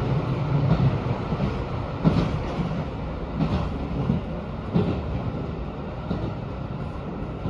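JR Hokkaido 721 series electric train running, heard from inside the carriage: a steady low rumble with a sharp knock from the wheels every second or so.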